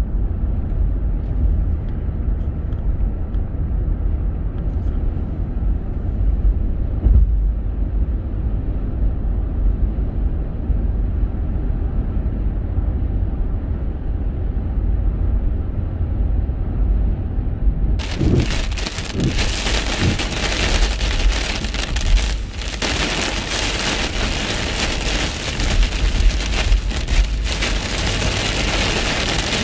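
Car driving, heard from inside the cabin: a steady low rumble of road and engine noise. About eighteen seconds in, it gives way suddenly to heavy rain hitting the windscreen, a loud even hiss over the road rumble.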